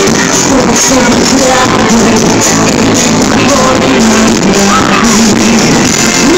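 Live pop concert music with a sung melody, loud and dense throughout.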